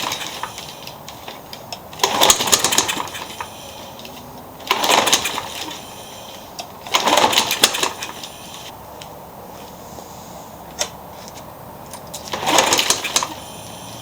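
Troy-Bilt push mower's Briggs & Stratton engine being pull-started, primed with carb cleaner: four sharp yanks of the recoil cord, each a brief rattling spin as the engine tries to kick over without catching. The blade or something underneath is hitting the deck as it turns.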